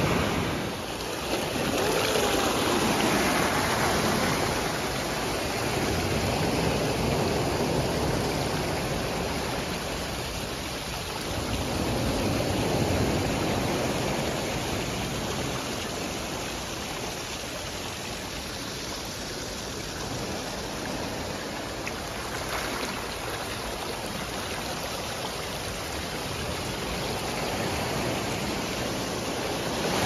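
Sea waves breaking and washing up the shore: a continuous rushing surf that swells and eases every few seconds.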